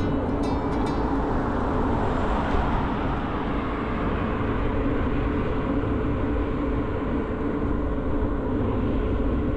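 Steady wind rush and rolling noise from riding an electric bicycle, with a constant low hum. A plucked-string music track fades out about a second in.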